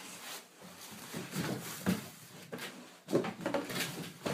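Cardboard rustling and scraping as the computer-case box is slid out of its cardboard shipping box, with louder, denser scraping from about three seconds in.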